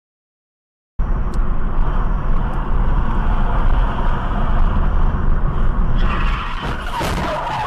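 Steady road and engine noise inside a moving car, starting about a second in. Near the end there is a short clatter and a wavering tyre squeal as a car skids across the road ahead.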